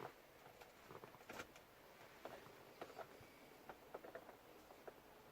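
Faint, irregular clicks and taps as the last 7mm screw is fitted into the bottom of the plastic cover and the tool touches the cover.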